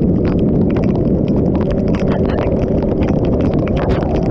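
Motorcycle at highway speed in heavy rain: a dense low rumble of wind on the camera microphone and the engine, with raindrops hitting as rapid, irregular sharp ticks.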